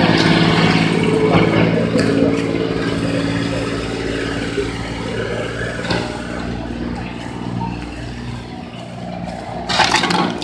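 A steady engine hum, like an idling motor or generator, over a haze of outdoor crowd noise, fading over the first several seconds. A brief loud burst of noise comes near the end.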